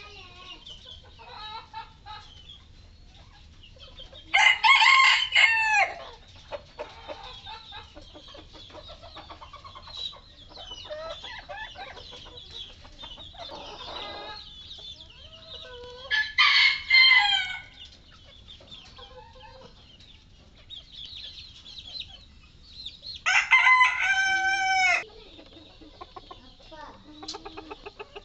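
A flock of chickens clucking, broken by three loud rooster crows, each about a second and a half long, spaced roughly ten seconds apart.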